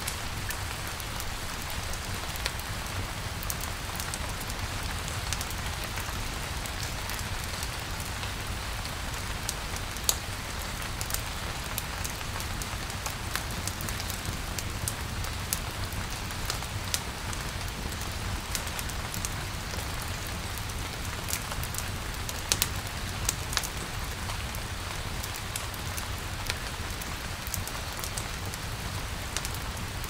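Steady rain falling, with scattered sharp ticks of drops throughout and a few louder ones about ten and twenty-two seconds in.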